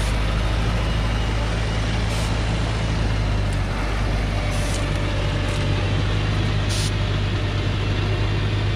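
Diesel engine of an old Thaco Forland log truck running steadily under load on a steep dirt track, with a few short hisses.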